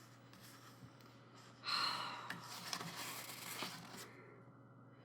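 Paper rustling as a page of a photobook is turned, starting about one and a half seconds in and trailing off over the next two seconds.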